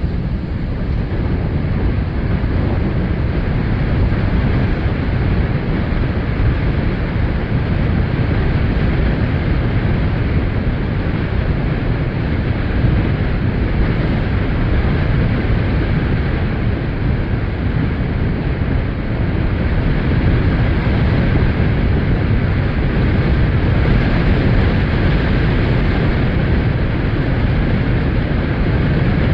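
Strong storm wind buffeting the microphone: a steady, loud, low rumble.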